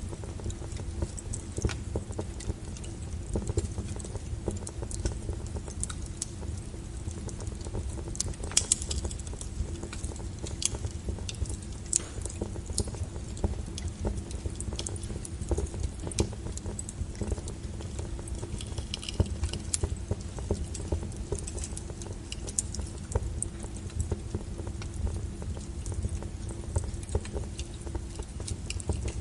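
Burning firewood crackling, with irregular sharp pops and snaps over the steady low rumble of the flames.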